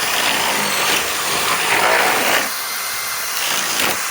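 Masterforce Boost cordless drill running under load, boring into wood, a steady loud grinding whir. About two and a half seconds in the deeper rumble drops away and the sound thins.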